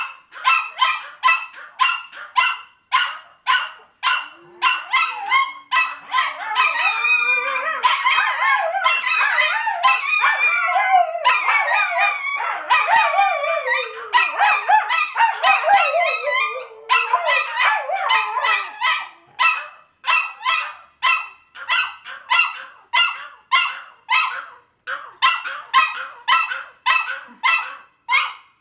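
Small house dogs barking over and over for a treat, about three sharp barks a second, with howling joining in and overlapping the barks for some ten seconds in the middle before the barking carries on alone.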